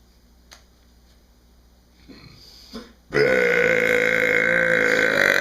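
A man's long, loud burp lasting about two seconds, holding one steady pitch. It starts about three seconds in, after a few faint short sounds.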